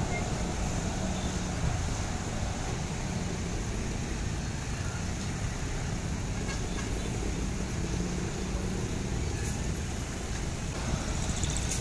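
Steady road traffic close by, with motorcycles, cars and trucks passing: a continuous engine rumble with no distinct events.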